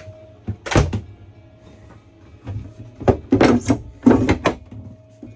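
Wooden cabin drawers being pulled open and pushed shut by hand: one knock about a second in, then a quick run of sliding knocks in the second half.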